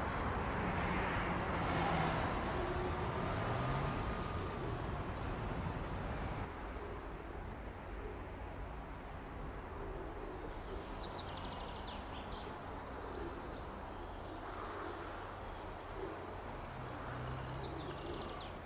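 Outdoor field-recording ambience with a steady background hum. About four or five seconds in, a high pulsing call starts at about four pulses a second, then runs on as a steady high tone with a few short chirps.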